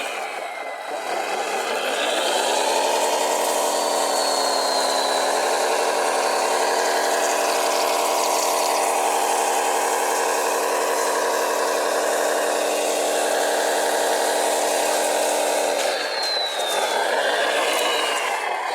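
A radio-controlled model machine's motor running with a steady, many-toned whine. It rises in pitch about a second in, holds steady, and falters near the end.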